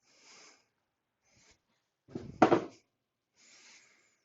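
Spatula scraping ground garlic and herbs out of a mortar, soft scrapes with one louder knock about two and a half seconds in.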